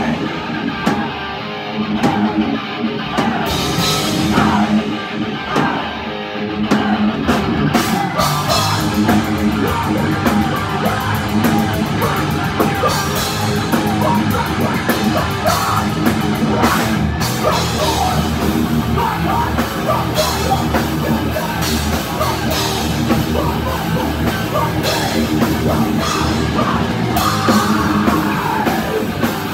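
Live thrash metal band playing at full volume: distorted electric guitars, bass guitar and a drum kit. The drumming thickens into rapid cymbal hits from about eight seconds in.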